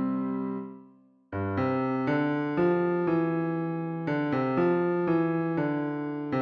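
MIDI playback of the tenor and bass parts of a choral arrangement in a keyboard-piano voice: a held chord fades out, there is a brief gap about a second in, then the two lines resume with a run of notes at a steady pace.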